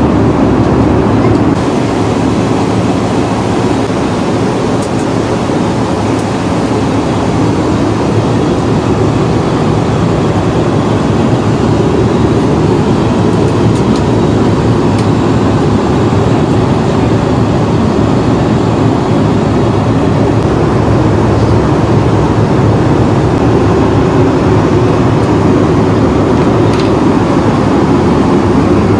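Steady rushing cabin noise of an Airbus A320 in cruise flight, even and unbroken.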